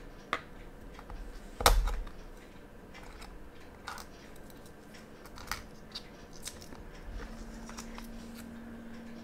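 Steel tweezers clicking against a quartz watch movement and its coin-cell battery as the battery is lifted out: a handful of small sharp clicks, the loudest about a second and a half in.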